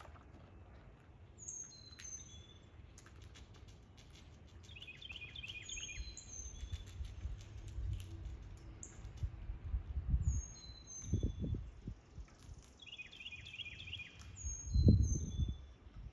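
Songbirds calling: a short high whistled phrase that drops in pitch and a quick chattering trill, each coming back several times. Low rumbles come and go beneath them, the loudest near the end.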